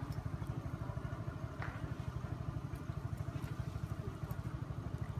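A small engine idling nearby, a steady low throb pulsing several times a second.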